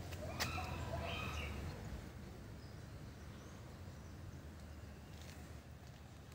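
Faint outdoor background noise with a low rumble. A few short clicks and brief high calls come in the first two seconds, then only a quieter, even background remains.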